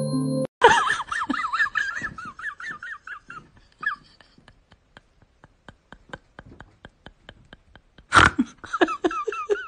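A person laughing in high, quickly wavering giggles for a few seconds, then faint regular ticking, a single loud knock about eight seconds in, and the giggling again. A few notes of glockenspiel music cut off about half a second in.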